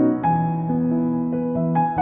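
Background music: a gentle piano or electric-piano melody, notes changing every half second or so.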